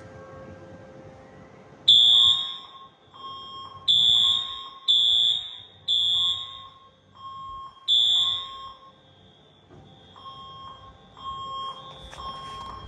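Fire alarm sounders being tested, starting about two seconds in. They give loud, high-pitched blasts, each under a second and irregularly spaced, over a lower, quicker repeating beep. After about ten seconds the high blasts fade to fainter beeps while the lower beep keeps on.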